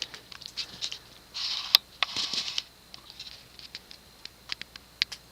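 1980 Emerson Designer 36-inch plastic ceiling fan with a K55 motor, running on low speed: a whoosh of moving air that swells twice in the first half, with irregular light ticks and clicks throughout.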